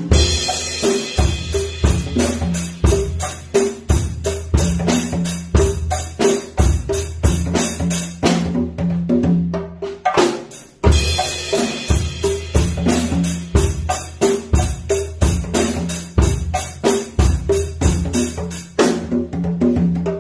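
Congas played by hand in a fast, steady rhythm, struck over recorded music with a steady bass line. The hits thin out briefly about halfway through, then the full rhythm comes back in.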